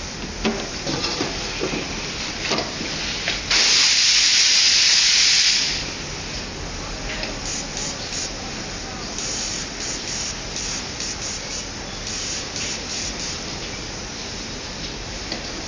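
Airbrush spraying: a steady hiss of compressed air for about two seconds, starting about three and a half seconds in, then a run of short hissing bursts as the trigger is pulsed.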